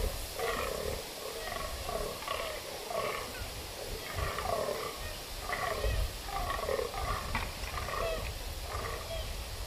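Rutting fallow bucks croaking, short belching calls repeated about twice a second, the dominance call of bucks on a lek.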